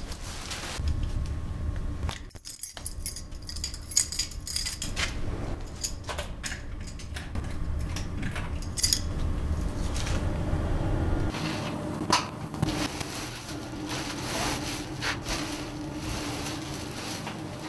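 Scattered clicks, clinks and knocks of objects being handled, over a low steady rumble that stops about two thirds of the way through.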